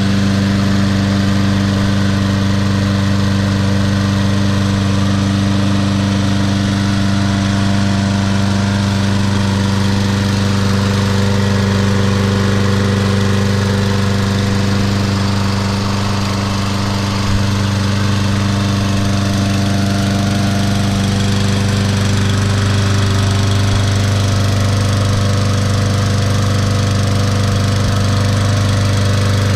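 Troy-Bilt push lawn mower's 6.75 hp Briggs & Stratton single-cylinder engine running at a steady speed, running well.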